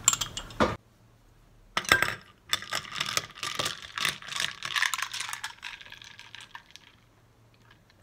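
A spoon clinking in a glass of iced coffee as it is stirred, cut off abruptly under a second in. After a short pause comes several seconds of dense, light clicking and rattling.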